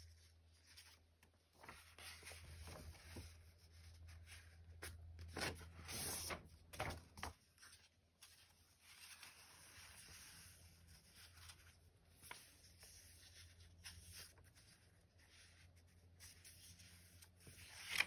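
Soft paper rustling and sliding as hands handle and fold a sheet of paper against journal pages, louder for a few rustles around five to seven seconds in, with a page turned near the end.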